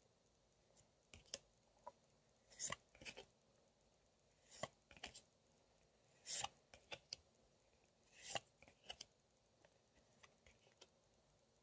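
Photocards being handled and swapped by hand: scattered short clicks of card against card, with a few longer sliding swishes as a card is drawn from the stack.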